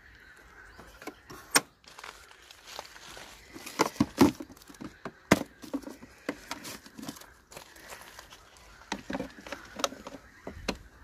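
Scattered clicks and knocks of hands handling the plastic seat latch and under-seat storage bin of a Honda Dio scooter, with a screwdriver being picked up and set against the latch; the sharpest knocks come about a second and a half in, around four to five seconds in, and again near the end.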